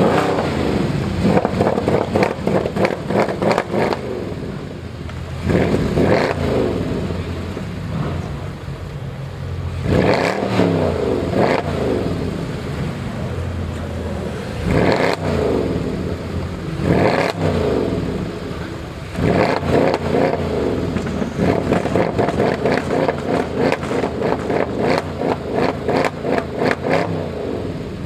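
High-performance car engines revving hard and accelerating with loud exhausts, in several separate surges that rise and fall in pitch. The second half has a long stretch of rapid crackling from the exhaust.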